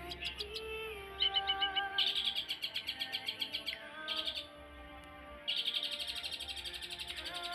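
Long-tailed shrike (burung cendet) singing: fast chattering runs of rapidly repeated high notes in several bouts, with a brief lull a little past the middle.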